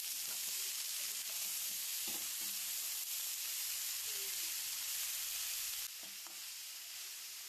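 Small snails in their shells frying in an aluminium wok: a steady sizzle, with a few scrapes of a metal slotted spatula as they are stirred. The sizzle drops a little quieter about six seconds in.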